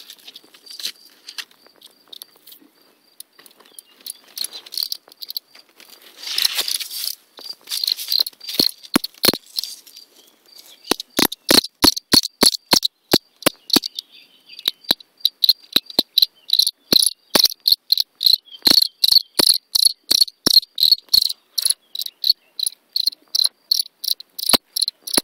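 European field cricket (Gryllus campestris) calling from its burrow entrance: a run of short, high chirps, faint and broken at first, then loud and regular at about three a second from about ten seconds in. A brief rustle of leaves about six seconds in.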